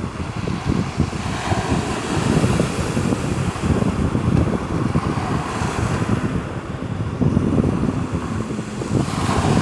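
Wind buffeting the microphone in uneven gusts over the steady wash of small sea waves.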